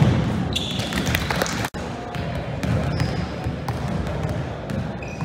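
Indoor court game: a ball thudding on a hardwood floor, with sharp impacts and short high squeaks of sneakers on the court over a murmur of voices. The sound drops out for an instant about two seconds in.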